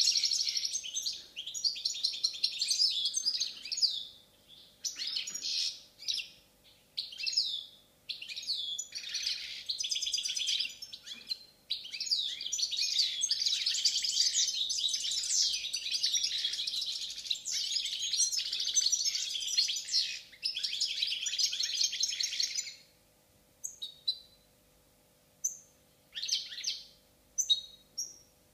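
Balkan goldfinch (Carduelis carduelis balcanica) singing: long, fast twittering song phrases for most of the stretch, breaking into short, separate calls with pauses between them for the last few seconds.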